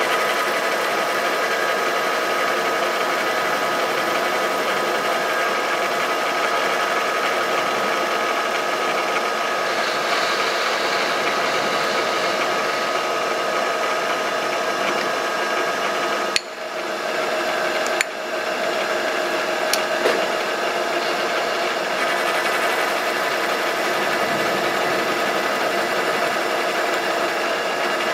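Milling machine spindle running steadily as a small gear cutter mills teeth into a brass gear blank, a steady hum with several held tones. A few sharp clicks come past the middle.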